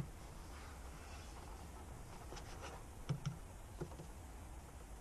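Faint clicks and small knocks of a Peugeot 207 rear tail-light's plastic housing and bulb holder being handled, a few sharper clicks about three to four seconds in.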